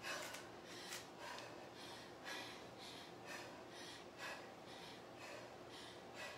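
A woman breathing hard while doing kettlebell goblet squats, a short breath about every second.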